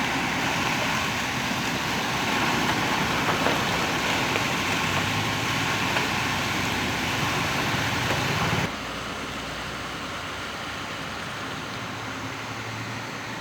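Diesel engine of heavy construction machinery running steadily. About nine seconds in the sound cuts abruptly to a quieter, duller engine hum.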